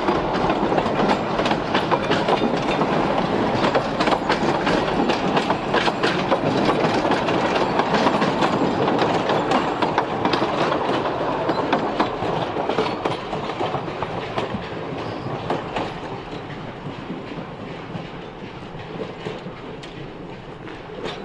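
Train rolling on rails, its wheels clattering over rail joints with many sharp clacks, fading steadily as it moves away over the second half.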